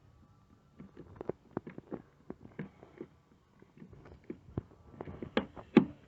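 Irregular small clicks, taps and clatters of a rivet gun and small parts being handled and got out, with two sharper knocks near the end.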